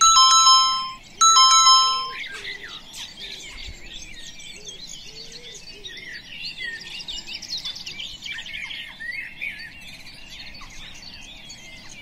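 Timer alarm chime: a loud two-note falling ding-dong sounds twice in the first two seconds. Dense bird chirping and twittering follows and continues to the end.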